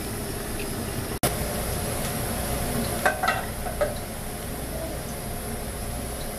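A pot of potatoes boiling on a gas stove, with a steady bubbling hiss. A few ringing metallic clinks come about three seconds in as a metal lid is set on the pot.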